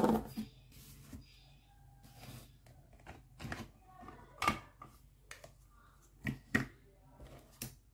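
Hard plastic toy food being handled: scattered light clicks and knocks as a plastic toy fish is lifted out of a plastic basket and handled.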